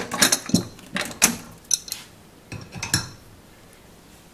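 Steel tools and hardware clinking and clanking on a bolt-tension test rig, about eight short sharp metallic knocks over roughly three seconds, then quiet handling.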